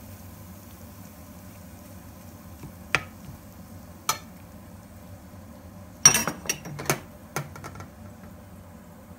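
Metal slotted spatula clinking and scraping against a plate: one sharp clink about three seconds in, another a second later, then a quick run of clinks and scrapes a couple of seconds after that. A steady low hum runs underneath.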